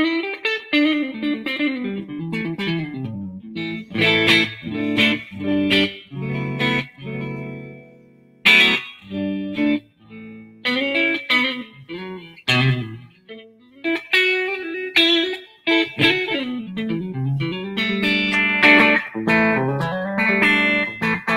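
Electric guitar played through the Line 6 HX Stomp's Cali Texas Channel 1 amp model with the drive turned right down, giving a clean tone. Picked single notes and chords, with one note left ringing for about two seconds near the middle.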